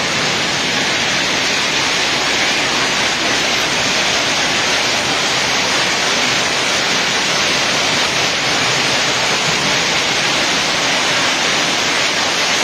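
Hailstorm: hail and rain coming down steadily in a dense, even hiss.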